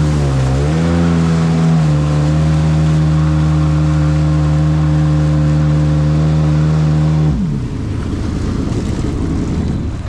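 Jet ski engine running at a steady throttle, its pitch dipping and rising in the first second or so and then holding level. About seven seconds in the throttle is let off and the engine note drops sharply, leaving a rougher low rumble.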